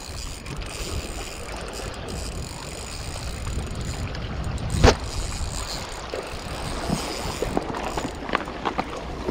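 Wind buffeting the microphone over sea water lapping against rocks, with one sharp click about five seconds in and a few lighter clicks near the end.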